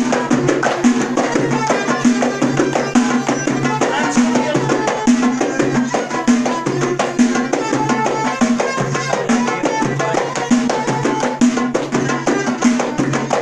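Moroccan houariyat folk music: a hand-held frame drum beating a fast, driving rhythm with hand clapping, and a violin in the band.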